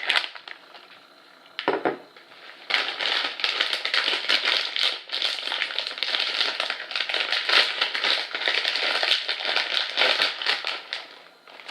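A plastic Cheetos snack bag being torn open, with a short rip about two seconds in. It is followed by steady crinkling and rustling of the bag as it is pulled open and handled.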